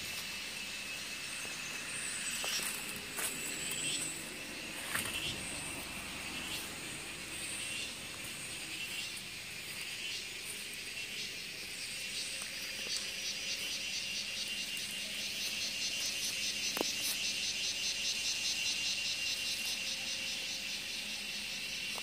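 Forest insects buzzing steadily at a high pitch, joined about halfway through by a second, fast-pulsing insect chorus, over the running noise of a vehicle driving along. A few knocks in the first few seconds and one near the end.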